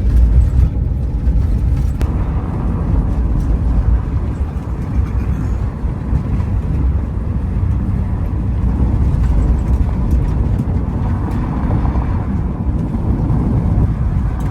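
A van driving slowly over a rough, unpaved road: a steady low rumble of tyres and engine.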